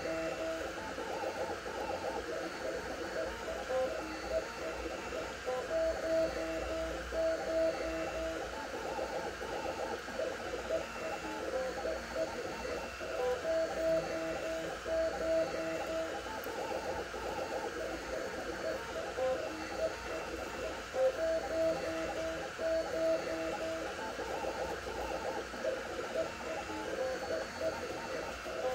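Stepper motors of a Sapphire Plus CoreXY 3D printer singing as the print head moves at 130 mm/s. Steady pitched tones during long straight moves alternate with quick, changing chatter, and the pattern repeats every seven to eight seconds.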